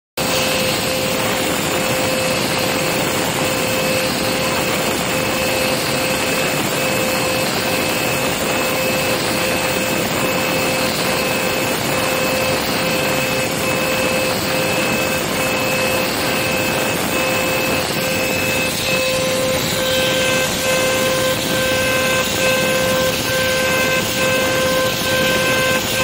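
High-speed CNC spindle at 24,000 rpm milling aluminium-silicon alloy with a 45° V-insert engraving tool: a steady loud hiss of cutting with constant high whining tones over it, a few more tones joining in about three-quarters of the way through.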